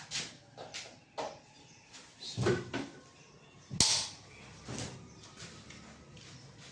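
Scattered knocks, clicks and scraping of pieces being handled and set up on a table saw that is not running, the loudest a sharp knock about four seconds in.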